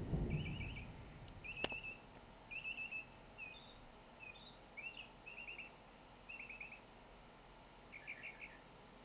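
Northern mockingbird singing: a string of varied short phrases, each a quick run of repeated notes, with short pauses between. A low thump sounds at the very start, and a sharp click about a second and a half in.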